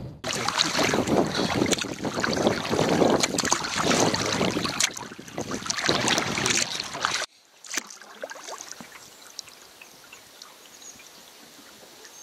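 Choppy lake water splashing and slapping against a canoe, with wind noise on the microphone. About seven seconds in it cuts off suddenly to much quieter, faint lapping of calmer water.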